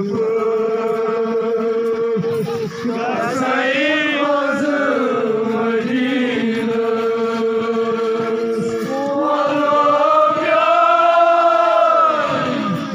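Men's voices chanting together in long held notes, the melody rising and falling in slow arches in the second half.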